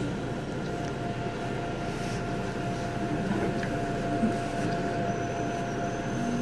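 Seoul Subway Line 9 train running through a tunnel, heard from inside the car: a steady rumble of wheels on rail with a thin, steady whine above it.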